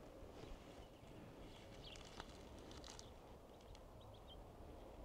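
Near silence with faint footsteps on the ground, heard as a few soft scattered steps, and a few short faint high chirps.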